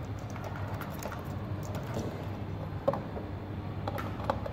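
Small scattered clicks of wire and screwdriver handling at the terminals of a plastic 8-pin relay socket, the sharpest about three seconds in, over a steady low hum.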